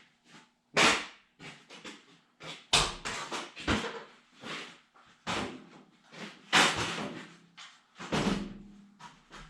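A quick, irregular run of knocks, clunks and scrapes from parts and tools being handled, with loud bangs about a second in, about three seconds in and just past the middle.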